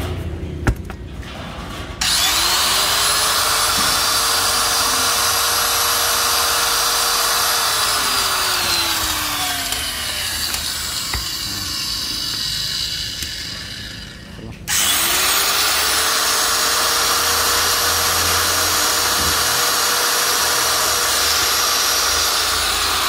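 Electric hand angle grinder run twice: each time the motor spins up with a rising whine, runs steadily at full speed, then winds down with a falling whine.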